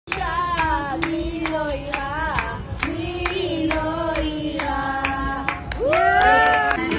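A child singing a melody into a microphone, with hands clapping along in time, a little over two claps a second. Near the end the voice swoops up into a louder held note.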